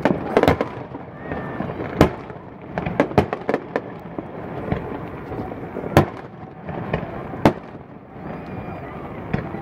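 Fireworks going off: sharp bangs at irregular intervals, with a quick run of four or five bangs about three seconds in.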